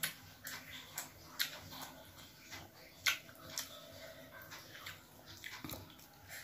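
Close-up chewing of rice and fish curry: irregular wet mouth smacks and clicks, several a second, mixed with the squish of fingers working rice on a plate.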